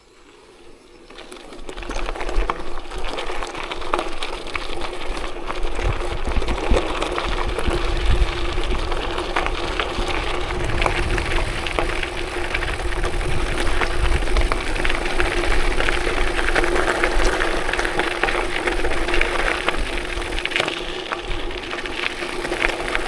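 A vehicle moving off and running along an unpaved forest road: a steady engine-like hum with rumbling road and wind noise, which comes up about a second and a half in and then holds.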